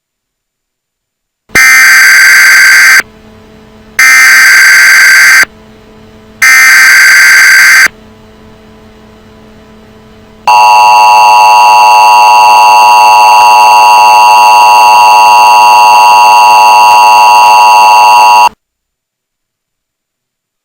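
Emergency Alert System tones: three loud buzzing data bursts of the SAME header, each about a second and a half long with short gaps, then the steady two-tone EAS attention signal held for about eight seconds before it cuts off suddenly. Together they signal the start of an emergency alert.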